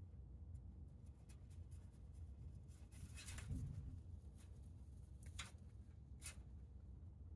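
Rabbit eating hay: faint, irregular crunching and rustling of the dry stalks, about once a second, with a longer rustle about three seconds in, over a low steady hum.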